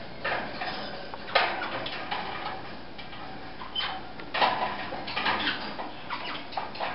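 Baby Senegal parrots shuffling, with soft scratching and rustling clicks and a couple of brief, faint high chirps.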